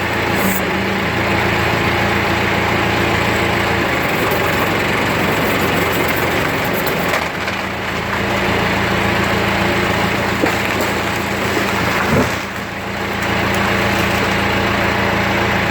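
Chainsaw engine running steadily, with short dips in level about halfway through and again about three-quarters of the way in.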